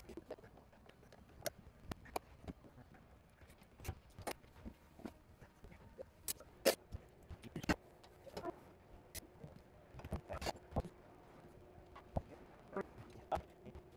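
Irregular light clicks, taps and knocks of hand tools and trim parts being handled during repair work, with the two sharpest knocks about seven and eight seconds in.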